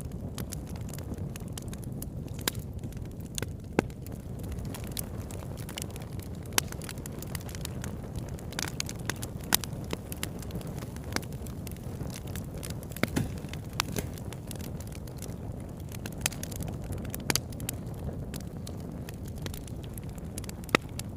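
Bonfire burning with a steady low rumble of flames, and sharp pops and crackles at irregular moments.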